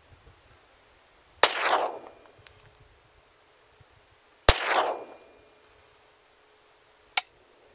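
Two pistol shots from a Glock 20 in 10mm Auto, about three seconds apart, each with a short echoing tail. Near the end comes a shorter, sharper crack.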